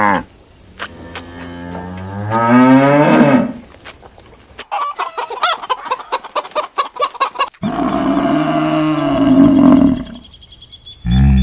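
Farm animal calls one after another: a long rising moo from a cow, then a chicken clucking in a quick run of short notes, then another long call.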